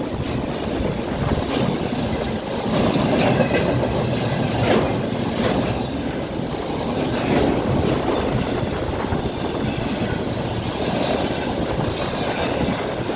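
Empty container wagons of a freight train rolling past: a steady rumble with wheels clattering over the rail joints, and a short metallic wheel squeal a few seconds in.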